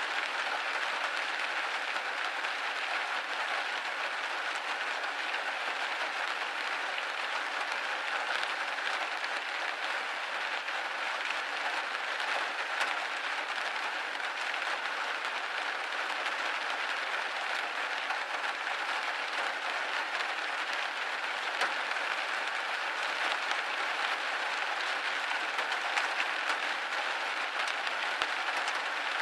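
Steady rain pattering on a window pane, a dense even hiss of many small drop ticks.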